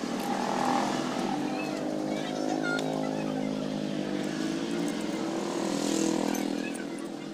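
A motor vehicle engine running steadily in the background, easing off near the end, with a few light clinks of metal parts being handled.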